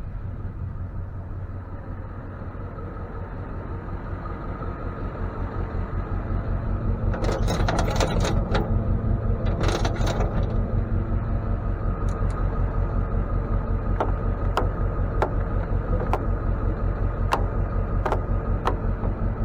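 Tow truck's engine running with a steady, pulsing low drone that grows louder over the first several seconds. A cluster of metallic rattles and clanks comes about a third of the way in, then a series of sharp single clicks.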